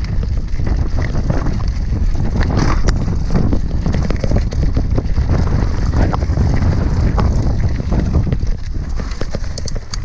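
Mountain bike clattering down a rocky singletrack: tyres crunching over loose stones, the bike rattling and knocking with each bump, with a steady wind rumble on the microphone.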